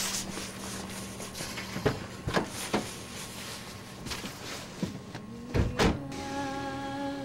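A car door being handled, with several knocks and clicks, then two heavy thuds close together about six seconds in as it shuts. A held, hummed note of background music comes in just before the thuds.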